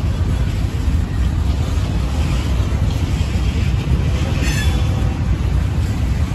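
Norfolk Southern ES44AC and D9-44CW diesel locomotives running with a steady low rumble. A brief high squeal about four and a half seconds in.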